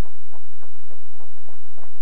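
Audience applauding, sharp claps standing out about three or four times a second.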